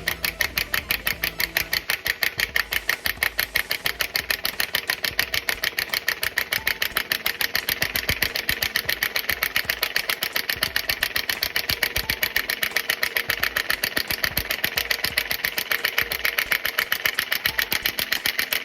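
Impact wrench run slowly on a light trigger, its hammer clattering in rapid, even blows as it draws a new wheel stud into the hub.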